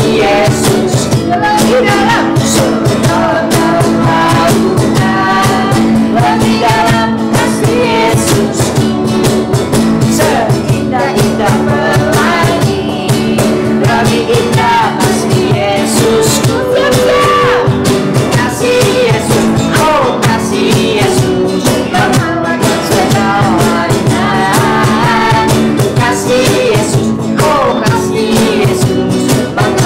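Group of young voices singing a lively worship song in unison, accompanied by two strummed acoustic guitars.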